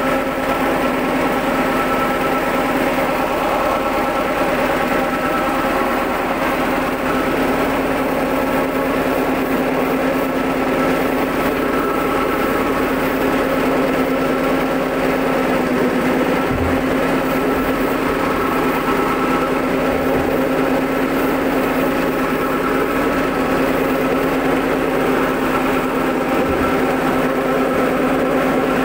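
Stainless steel soybean cracking and hull-separating machine running steadily, a constant hum over an even mechanical noise.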